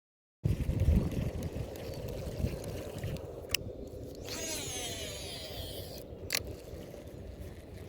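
Fishing reel cast: a click, then the spool's whine falling in pitch for about two seconds as line pays out, then a second click as the reel is engaged, over low handling and wind noise.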